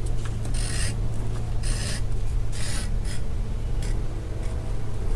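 Stitching groover cutting a groove into a leather panel: a string of short rasping scrapes as the blade is drawn along the line in one pass.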